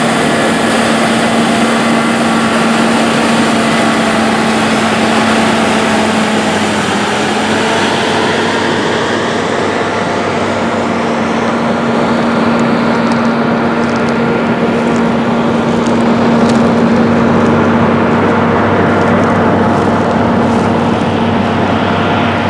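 New Holland CR8090 twin-rotor combine running at harvesting load in winter wheat: a steady engine and machine drone with a constant hum. The high hiss eases about halfway through, and light ticks come in from then on.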